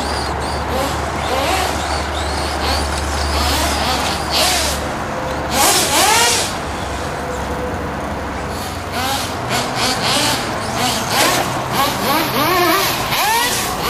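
Brushless electric motor of a Brontosaurus 4x4 RC monster truck whining up and down in pitch over and over as the truck accelerates and slows around the track. Short bursts of noise come in between.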